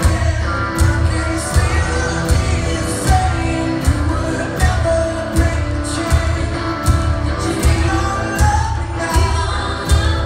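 Live pop-rock band in full song: a male lead voice singing over a steady drum beat, a hit about every three-quarters of a second, with keyboard and guitar, heard from the audience in a large hall.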